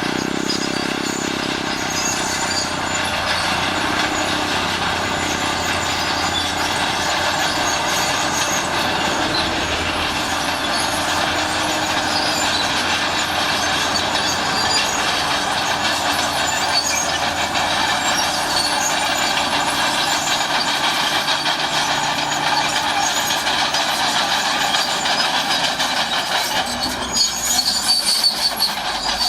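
Crawler bulldozer working: diesel engine running steadily under load with the clatter and squeal of its steel tracks, getting louder and rougher near the end.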